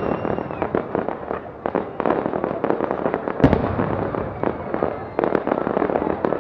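Aerial fireworks display: shells bursting in a dense run of crackling pops and bangs, with one heavy boom about halfway through.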